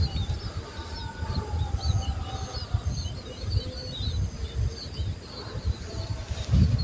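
Many small birds chirping in quick, short notes, over an uneven low rumble.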